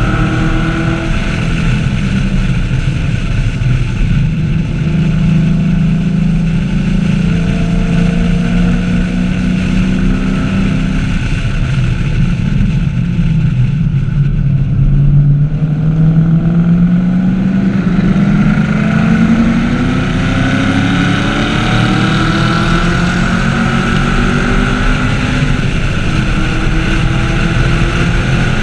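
2014 Chevrolet Camaro SS 1LE's 6.2-litre V8 running hard on track. Its pitch sinks slowly to a low point about halfway through, then climbs steadily under acceleration through the second half.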